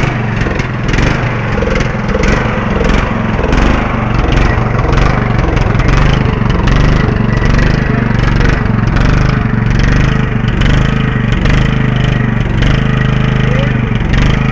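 Riding lawn mower engine running steadily with a pulsing beat, which the owner thinks needs a valve adjustment.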